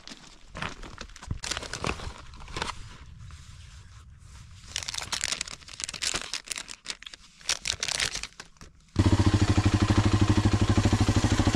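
Plastic snack bag crinkling and being torn open by hand, a run of sharp crackles and rustles. About nine seconds in, it cuts suddenly to a motorcycle engine running loud and steady.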